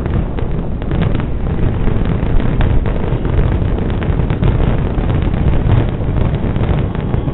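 A fireworks finale barrage: many bangs and crackles run together over a deep, continuous rumble.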